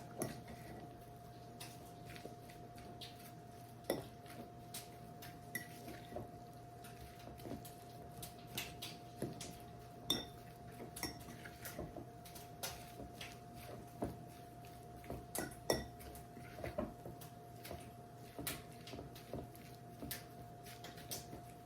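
Utensil clinking and knocking against a bowl in irregular taps as chicken salad is stirred and mixed with mayonnaise. A steady hum runs underneath.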